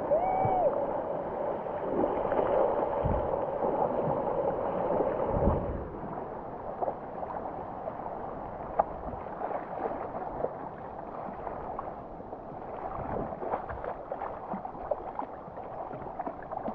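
Water sloshing and splashing around a helmet-mounted GoPro while surfing. It is louder for the first six seconds, then drops to a lower wash with small scattered splashes.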